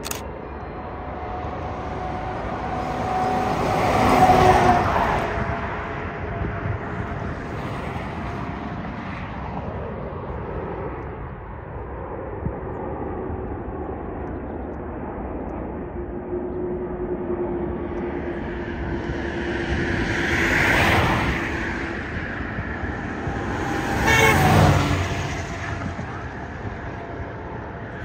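Boeing 747-400F jet engines on final approach, a steady rumble, mixed with road traffic. Vehicles pass close by about four seconds in and twice near the end, each swelling loudest for a second or two.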